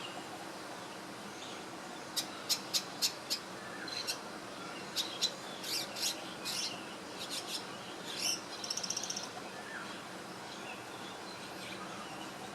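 Small swiftlet-like bird chirping: a quick run of about five sharp, high chirps, then scattered chirps, then a short rapid buzzing trill about two thirds of the way through, over a steady background hiss.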